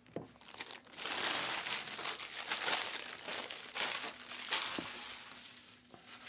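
Plastic wrappers of Donruss basketball hobby packs crinkling and tearing as the packs are ripped open by hand. It is a busy run of rustling from about a second in that thins out near the end.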